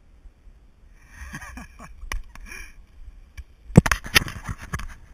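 Knocks and rubbing right on a wearable action camera as it is handled, loud and irregular, ending abruptly when recording stops. Before that, a faint voice and a few light clicks.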